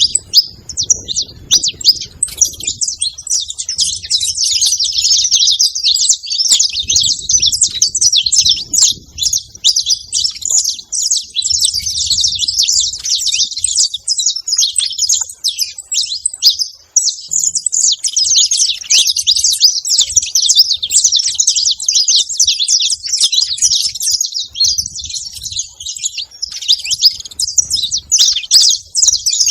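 Saffron finches chirping and calling in a dense, continuous stream of rapid high chirps, easing briefly a little past the middle.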